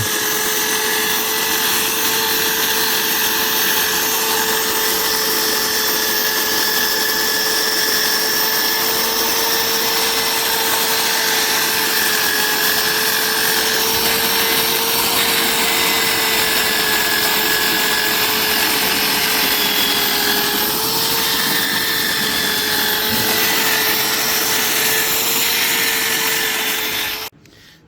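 A handheld electric power tool runs steadily at constant speed, with a steady whine, while it scrubs rust and dirt off the surface of a truck engine block. It cuts off suddenly near the end.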